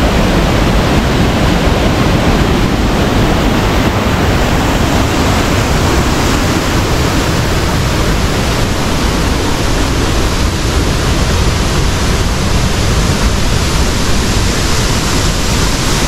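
Loud, steady rush of a waterfall cascading over rocks, with no let-up.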